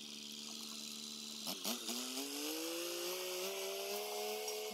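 Farm tractor engine running steadily, then a couple of clunks about one and a half seconds in, after which the engine revs up and holds a higher pitch as the tractor pushes into brush with its box blade.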